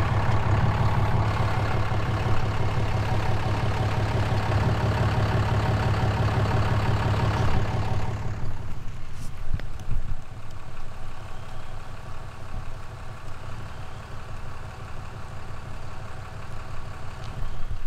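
Vehicle engine running with tyre and road noise while driving on a gravel road; about eight seconds in the noise drops as the vehicle slows and comes to a stop, leaving the engine idling. A few brief knocks follow shortly after.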